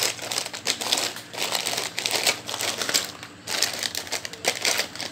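Plastic bags of small electronic modules crinkling and rustling in irregular bursts as a hand rummages through a bin of them.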